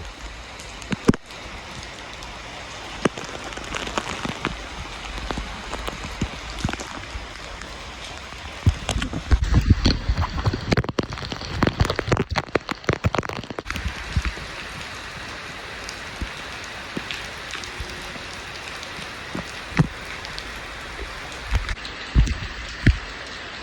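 Hurricane rain pouring steadily, with scattered sharp drips and taps. About nine seconds in comes a stretch of several seconds of louder, irregular low rumbling and knocks, like wind gusts hitting the microphone, before the steady rain alone returns.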